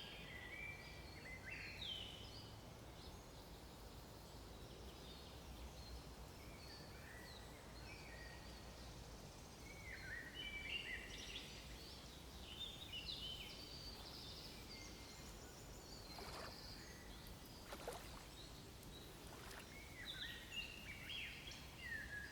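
Faint birdsong: several small birds giving short, repeated chirping phrases over a steady low background hiss of outdoor ambience. A few faint clicks come in the later part.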